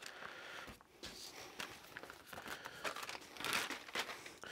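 Plastic vacuum packaging crinkling as it is peeled off a piece of raw pork tenderloin by gloved hands. The crackling is irregular and a little louder about three and a half seconds in.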